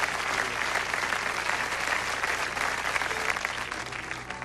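Concert audience applauding, the clapping thinning out near the end.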